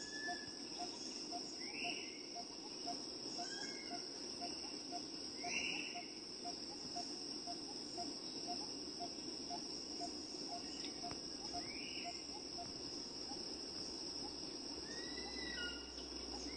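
Tropical forest insect chorus: a steady high-pitched drone with a soft tick about twice a second, and short sweeping calls every few seconds.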